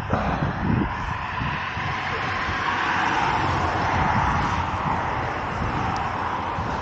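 Steady rushing noise of a Onewheel GT riding along a paved path: tyre roll and wind on the helmet-mounted microphone, with a few low thumps in the first second and a slight swell in the middle.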